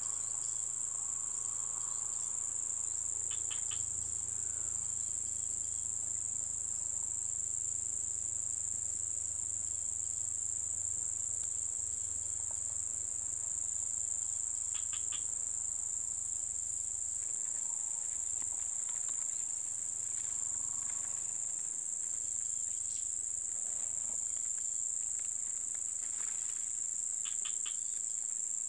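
Insects trilling in one steady, unbroken, very high-pitched drone, with a few short high chirps three times.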